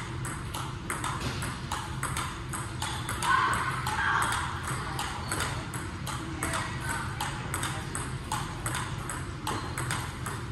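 Table tennis rally: the plastic ball ticking off paddles and table in a quick, even run, about three ticks a second, with a brief louder sound a little over three seconds in.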